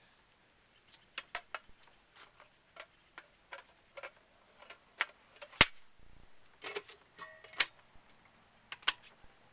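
Parts of a Breville Juice Fountain juicer being fitted together: a run of irregular clicks, knocks and clacks, with one sharp snap a little past halfway the loudest.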